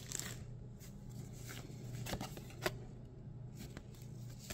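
Pokémon trading cards handled in the hand and slid one over another, giving soft scattered clicks and slides, the sharpest about two-thirds of the way through, over a faint low hum.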